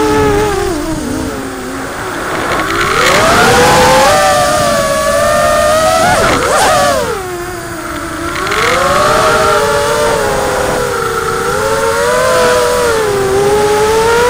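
Multirotor drone's electric motors whining, the pitch rising and falling with the throttle and a quick swoop about six and a half seconds in.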